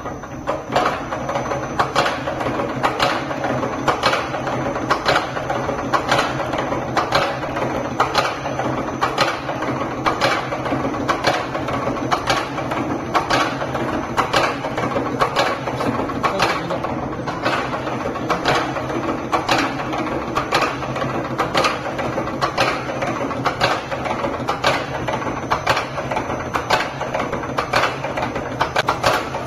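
Hasung hollow bead making machine running, forming a 5 mm metal tube into a chain of hollow beads: an even mechanical clack about twice a second over a steady motor hum.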